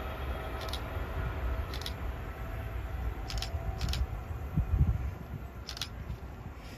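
Outdoor low rumble of wind on the microphone, with a stronger gust a little under five seconds in and a few faint, short high ticks.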